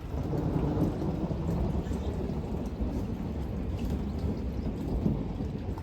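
Thunderstorm: a steady low rumble of thunder under falling rain, with scattered faint drop ticks.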